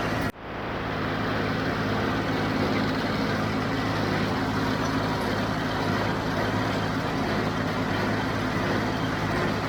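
John Deere 5055D tractor's three-cylinder diesel engine running steadily under load while pulling a working square baler, with a momentary dropout in the sound just after the start.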